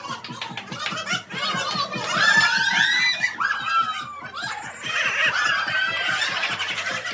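A small group of people laughing and shouting excitedly during a hula-hoop team game, over background music with a fast, steady beat.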